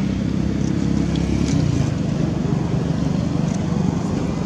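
A motor engine running steadily as a low drone, its low tone fading after about a second and a half.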